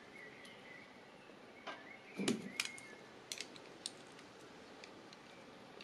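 Light metallic clicks and clinks of a pliers wrench and a small ball bearing on its bolt being handled, with a cluster of louder knocks a little over two seconds in and a few scattered ticks after.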